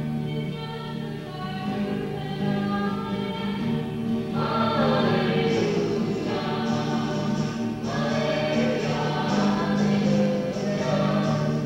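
Choir singing in long held chords.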